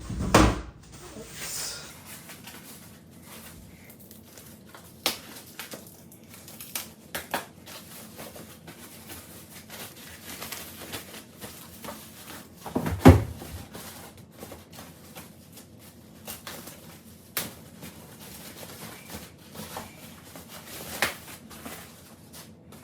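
Handling noise from assembling a monitor stand: scattered clicks, knocks and light rustling as parts are moved and fitted together, with a loud thump right at the start and another about 13 seconds in.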